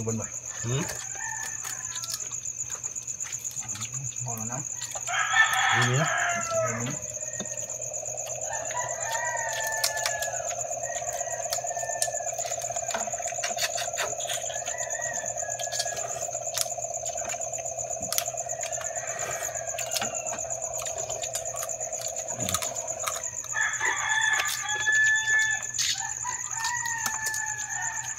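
A rooster crowing over the steady chirping of crickets, with a long, steady hum through the middle and small clicks of crab shells being picked apart.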